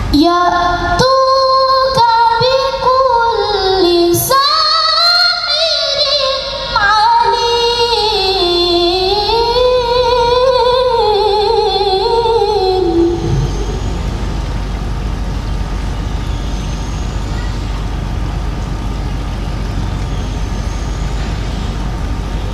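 A woman reciting the Quran in the ornamented, melodic tilawah style: one long held phrase with a wavering, gliding pitch that ends about 13 seconds in. After it comes only a steady background hiss and hum.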